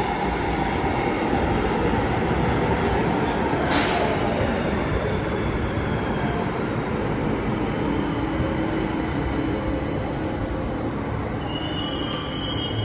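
Light-rail train pulling into a station and slowing to a stop: a steady rumble of wheels on rails with a motor whine, a brief sharp noise about four seconds in, and a high squeal near the end as it brakes.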